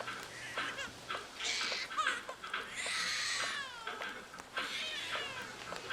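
An animal's cries: several short calls falling in pitch, the longest about halfway through, with faint sharp ticks between them.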